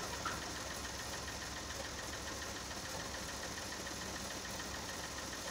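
Massey Ferguson 260 tractor's diesel engine running steadily while it pulls a trolley loaded with sand.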